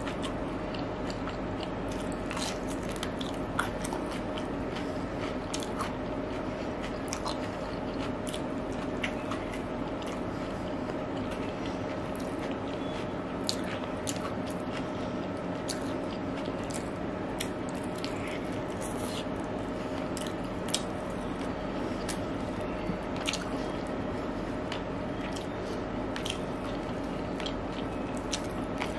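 Close-miked eating: chewing and crunching of raw cucumber slices and egg biryani eaten by hand, with many small sharp mouth clicks scattered throughout. A steady hum runs underneath.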